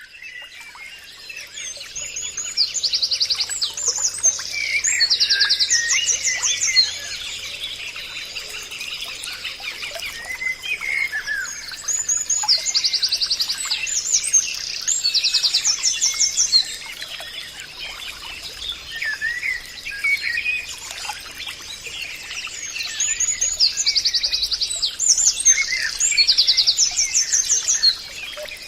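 Forest birds singing and calling together, many chirps and whistled notes overlapping. A bout of fast, high trilled phrases comes back three times, about every ten seconds, with a faint steady high tone underneath.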